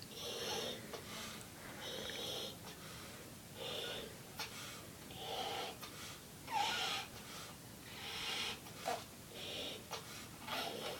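A boy inflating a large latex punchball balloon by mouth: heavy breaths, air drawn in and blown into the balloon, about eight times, roughly one a second and a half apart.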